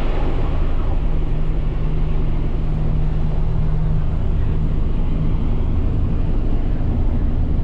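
Steady drone of farm machinery as a forage wagon of haylage is unloaded into a silo: a tractor engine running under load, with the silo blower running. It is a continuous low hum that holds even throughout.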